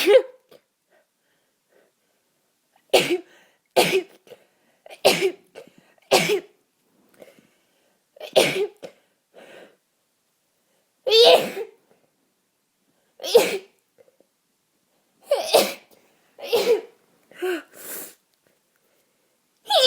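A long run of about a dozen wet sneezes in quick succession, one every second or two, from a person congested with a cold who can no longer hold them back.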